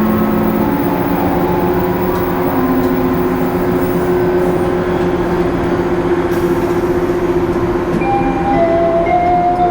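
Steady running noise of a 185 series electric train heard from inside the carriage: a low hum with a rumble of wheels on rails. About eight seconds in, the onboard announcement chime begins playing its melody over the running noise.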